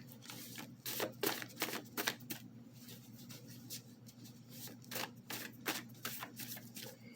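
Tarot cards being shuffled and handled: a faint run of irregular soft clicks and snaps.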